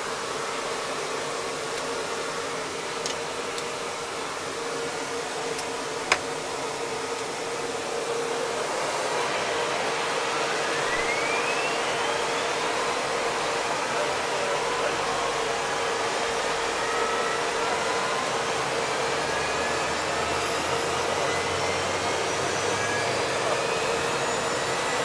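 Mil Mi-8 helicopter turbines during start-up, heard inside the cockpit: a steady whine and rush of air, a sharp click about six seconds in, then from about ten seconds a whine rising in pitch as an engine spools up, the sound growing slightly louder.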